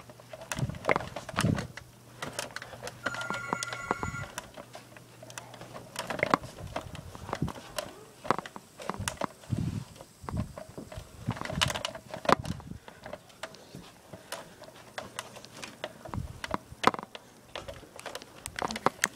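Scattered knocks, clicks and rustles of a phone being carried and handled on the move, with a brief steady tone about three seconds in.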